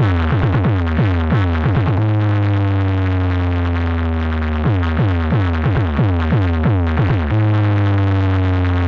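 Electronic dance music with a heavy deep bass. Runs of quick downward-sliding synth notes alternate with long, slowly falling held tones: one run at the start, a held tone from about two seconds in, another run from about five seconds in, then a held tone again.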